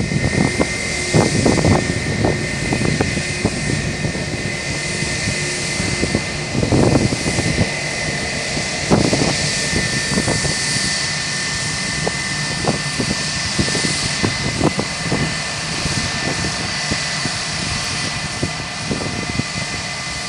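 Airbus A320-232 jet engines (IAE V2500) running at taxi power as the airliner taxis past: a steady whine with two high tones, over an uneven low rumble.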